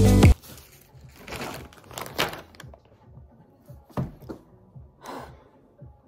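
Plastic mailing bags crinkling and rustling in several short, separate bursts as parcels are packed by hand.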